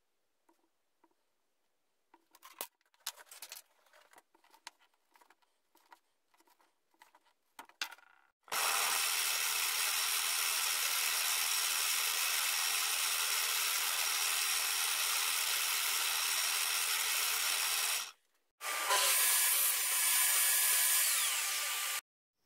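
Bench drill press running and boring holes in a wood block: a steady motor-and-cutting sound in two stretches, broken by a short gap. Before it, faint scratches and taps of a pencil and steel ruler marking out the wood.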